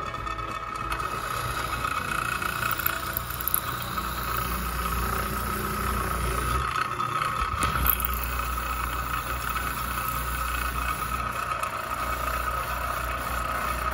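Electric drill with a countersink bit running steadily and cutting out rivet holes in the friction lining of a transmission brake band; a steady whine over a low hum.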